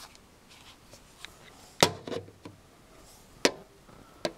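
Sharp clicks and knocks of hard plastic from a Panasonic cordless phone handset being handled and set against its base: a loud knock a couple of seconds in with a few lighter taps after it, another sharp click about a second later and one more near the end.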